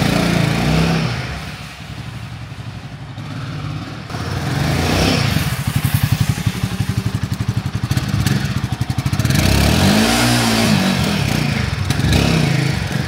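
Royal Enfield Himalayan 450's single-cylinder, liquid-cooled engine revving as the motorcycle is ridden in short loops. The revs rise and fall, and near the end the rear tyre spins up in a burnout.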